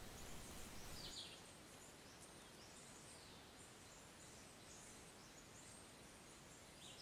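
Near silence: faint outdoor background with a few brief, distant bird chirps.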